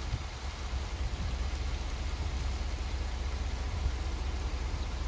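Steady hiss of freezing rain falling on ice-coated trees and ground, over a constant low rumble.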